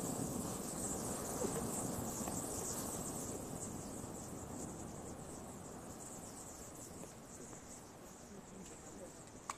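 Aerosol spray paint can burning after being shot open: a steady rushing of flame that gradually dies down, with crickets chirring throughout and a small click near the end.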